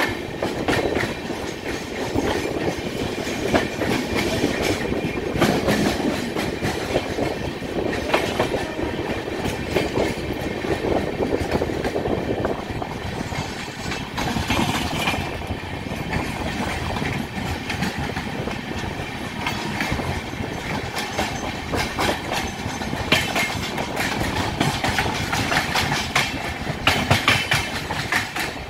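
Two Indian Railways express trains running side by side at speed, heard from aboard one of them: a steady rumble of wheels on rail with a clickety-clack of sharp clacks recurring every second or two as the wheels pass over rail joints.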